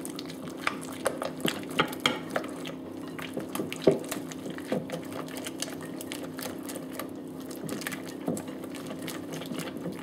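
A red silicone-wired balloon whisk stirring a runny mix of cream fraîche and soft cheese in a glass bowl, with irregular clicks and ticks as the wires knock against the glass, the sharpest about four seconds in.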